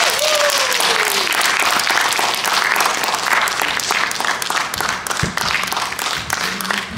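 Audience applauding: dense, steady clapping from a full hall that eases off a little near the end.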